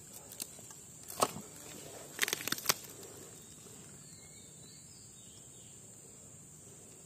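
Wet mud and muddy water being worked by hand in a flooded eel hole: a few short squelching, slapping sounds, one about a second in and a quick cluster around two and a half seconds, over a steady high drone of insects.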